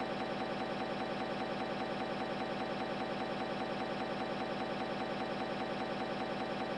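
A steady buzzing drone with a fast, even pulse several times a second, unchanging throughout.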